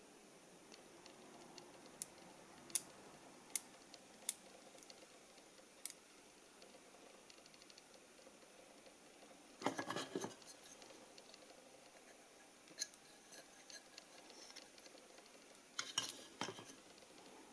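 Light metallic clicks and clinks of a small steel-and-brass half-nut mechanism handled by hand, its brass jaws knocking against the steel disc as they pivot. There are a few sharp single ticks at first, then two short rattling clusters, one near the middle and one near the end.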